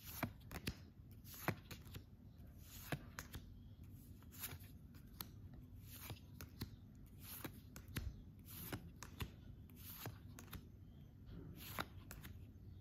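Oracle cards being flipped through by hand, one card slid off the front of the deck at a time. Each makes a faint, light click or flick, about once or twice a second, at an uneven pace.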